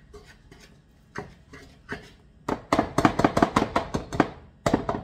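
Wire whisk beating a thick batter in a ceramic mixing bowl, the wires clinking against the bowl. A few single taps come first, then about halfway in a quick run of strokes at about six a second for nearly two seconds, and two last strokes near the end.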